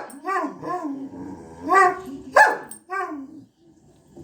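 Pet dog barking and vocalizing: a couple of sharp barks mixed with short, pitched calls that rise and fall, stopping about three and a half seconds in.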